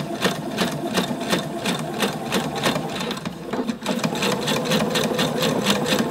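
Domestic electric sewing machine stitching bias binding onto a neckline at a steady pace. The needle strokes come in a rapid, even rhythm.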